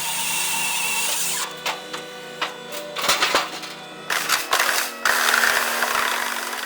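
Firewood processor at work: a hissing rush at the start, then scattered sharp knocks of wood and a second, louder rush of noise near the end. Background music with steady tones plays throughout.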